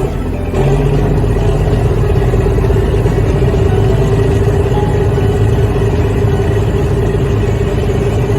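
Boat engine running steadily: a constant low hum with a held drone above it, starting about half a second in.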